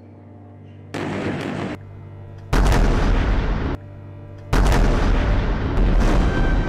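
Three explosions, each hitting suddenly and running on as a loud rumble. The first, about a second in, is softer; the second and loudest comes about a second and a half later, and the third about two seconds after that.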